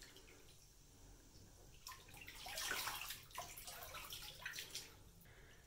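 Faint bathwater sloshing in a bathtub, with a swell of splashing a couple of seconds in and a few small splashes or drips after it.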